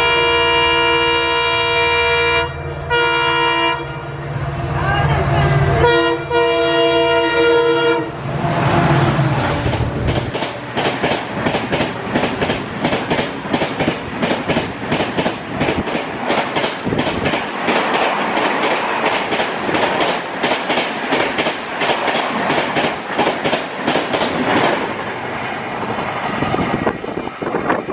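EMD diesel locomotive passing through at about 130 km/h, sounding its multi-tone horn in three blasts over the engine's rumble. Then the coaches rush past for about eighteen seconds, their wheels making a fast, continuous clickety-clack that eases off near the end.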